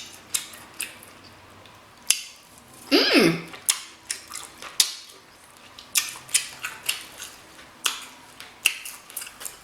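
Close-miked eating of king crab legs: irregular sharp cracks and clicks of shell with wet smacking and chewing. There is a short hummed vocal sound about three seconds in.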